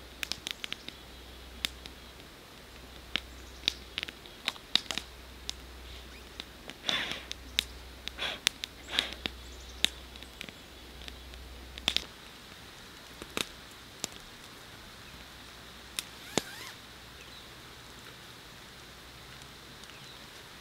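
Wood campfire crackling, with sharp, irregular pops and snaps, a few of them loud, and some short rustling scrapes between them.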